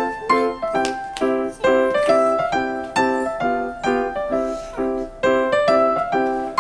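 Background keyboard music in a piano-like sound: chords repeated at an even pulse of about two a second with a melody above them.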